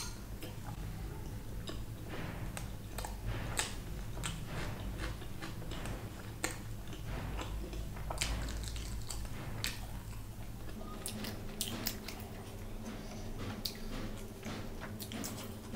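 Close-miked chewing of chickpea curry and fried bread, with frequent wet mouth clicks and smacks, and a bite of green chili in the middle. A low steady hum lies underneath and drops off about two-thirds of the way through.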